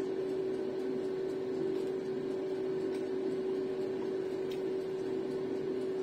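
Air fryer running: a steady fan hum with one constant mid-pitched tone.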